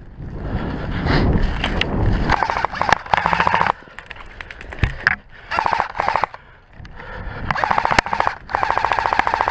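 Airsoft electric rifle firing four rapid full-auto bursts of quick clicking shots, the first about two seconds in and the last running on to the end. Before the first burst there is a low rumble of the player running through snow.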